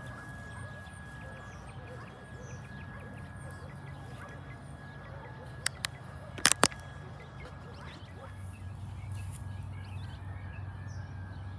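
Outdoor ambience: faint bird chirps over a steady low hum of street traffic, with four sharp clicks a little over halfway through, the last two the loudest.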